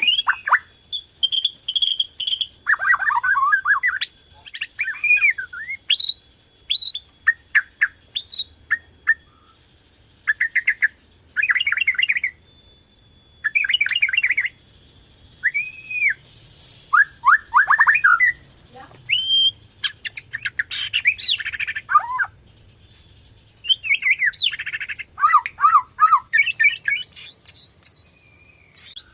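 A Borneo white-rumped shama (murai batu Borneo) in full song: a quick run of varied phrases made of clear whistles, sharp chips, rising and falling slurs and rattling trills, with short pauses between them. It is singing as a lure song meant to set other shamas singing.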